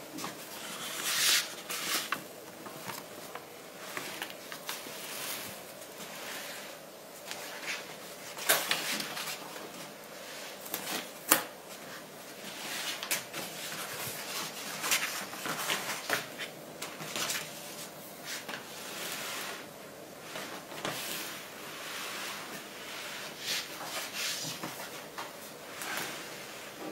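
Plastic laminating film and paper prints rustling and crackling as they are handled and fed against a cold laminating machine's rubber roller, with irregular sharp clicks and a couple of louder knocks.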